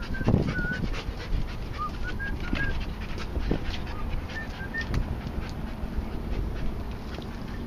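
Explosives detection dog panting and sniffing hard in quick, irregular breaths as it searches, with a few faint, short high chirps scattered through.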